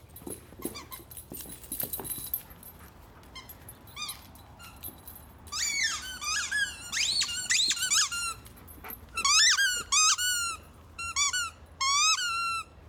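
Squeaky dog toy being chewed by an Alaskan Malamute: faint rustling at first, a couple of squeaks about four seconds in, then quick runs of loud squeaks, each rising and falling in pitch, until just before the end.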